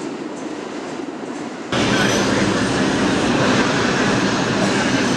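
New York City subway train running past a platform, a loud steady rumble that starts abruptly about two seconds in, over quieter station background noise before it.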